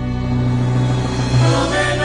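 Live orchestra playing: a low held note sounds under the strings, and the ensemble grows louder about halfway through.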